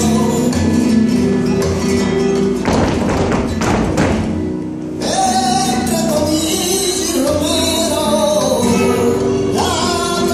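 Flamenco music with a singing voice, playing for the dancers. A dense strummed passage leads into a brief drop about four seconds in, after which the voice sings on.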